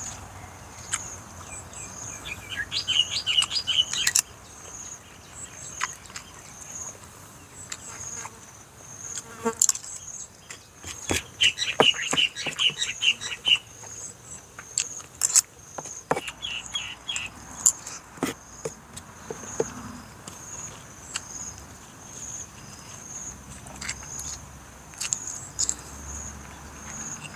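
Close eating sounds, with sharp clicks and crackles of fingers working food out of a banana-leaf wrapper, and chewing. Behind them an insect chirps steadily in a high pulsing rhythm, and three short rapid trills come and go.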